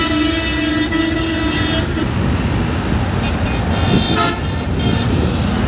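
Passenger train running across a long bridge, with a steady rumble of wheels and rushing air. A horn sounds, held until about two seconds in, and a second short toot comes about four seconds in.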